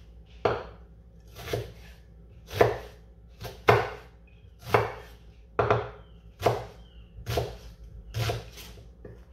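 Large kitchen knife chopping an onion on a wooden cutting board: separate knife strokes knocking on the board at a slow, even pace of about one a second.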